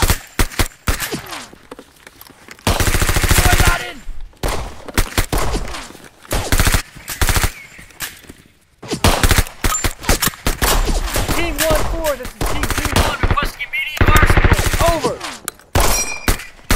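Heavy battle gunfire: long, rapid bursts of machine-gun fire mixed with rifle shots, dropping away briefly about eight seconds in before resuming, with men shouting between bursts.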